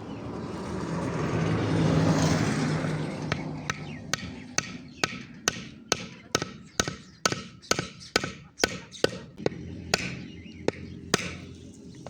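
A rush of noise that swells and fades over the first few seconds, then an even run of sharp blows, about two a second and some eighteen in all, that stops about a second before the end.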